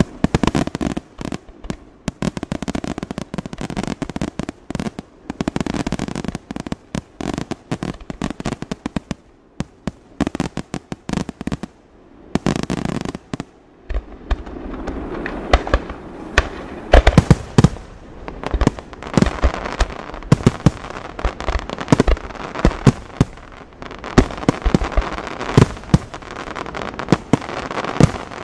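Aerial fireworks display: a rapid series of shell bursts and bangs that thins out about ten seconds in. From about halfway it builds into a dense, louder barrage of bangs with heavier low booms.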